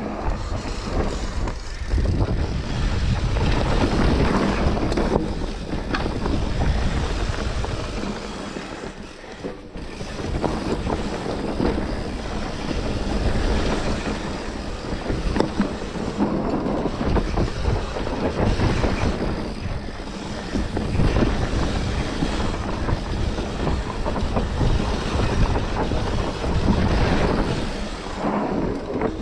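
Wind rushing over the microphone with the rumble and rattle of a bike riding a rough trail at speed, surging and easing in waves with a brief lull about a third of the way through.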